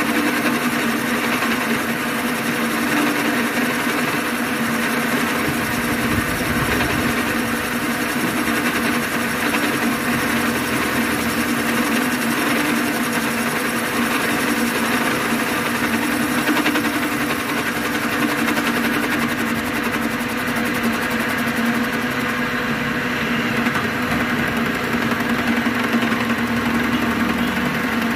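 Boring machine running steadily as its cutter bores out the cylinder opening of a motorcycle crankcase, an even motor hum with the scrape of the metal cut.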